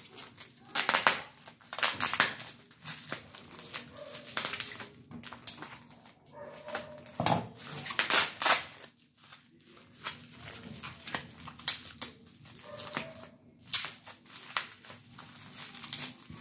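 Clear plastic wrapping crinkling in irregular bursts as it is handled and pulled off a wrench.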